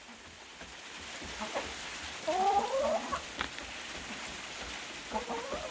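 A domestic hen gives a short warbling call about halfway through. A steady patter of rain and a few sharp ticks sound behind it.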